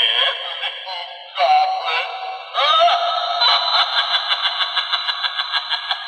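Knockoff Halloween talking skull doorbell playing its recorded spooky voice and sound effects through its small, scratchy speaker, thin and with no bass, in a low-pitched version of the audio. Near the end it turns into a rapid pulsing, about six beats a second.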